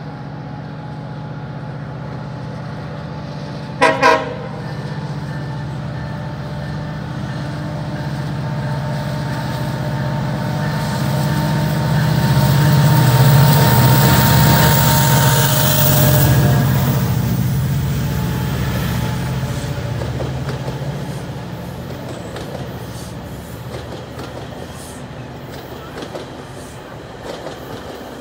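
GO Transit diesel commuter train approaching and passing: two short toots of the locomotive's horn about four seconds in, then the engine's rumble building to its loudest midway as the locomotive goes by. It fades as the bilevel coaches roll past with clicking wheels.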